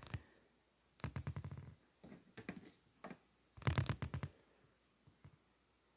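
Handling noise close to the microphone: three short runs of rapid clicking and rattling, the loudest a little under four seconds in, with quiet between them.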